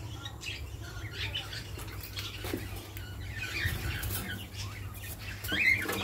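Budgerigars chattering: a steady stream of short, scratchy chirps that gets louder a little before the end, over a low steady hum.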